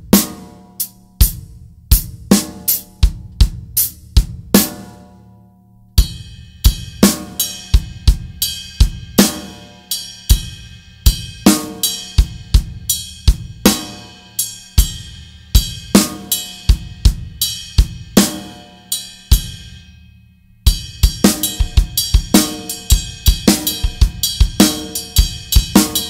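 Acoustic drum kit playing a hybrid triplet groove with a jazz-like feel: bass drum, snare and hi-hat under strokes on a large cymbal. The groove stops briefly twice, about five and twenty seconds in, and the last part carries a heavier ringing cymbal wash.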